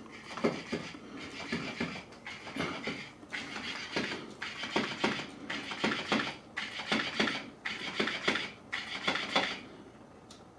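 Battery-powered Floppy Fish cat toy flopping on a hardwood floor, its motor-driven tail slapping about two to three times a second, stopping shortly before the end.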